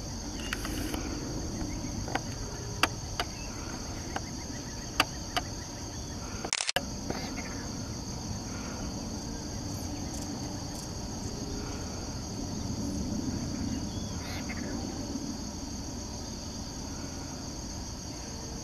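Steady high-pitched insect chorus, a continuous buzz holding two close pitches, with a few sharp clicks scattered through the first seven seconds.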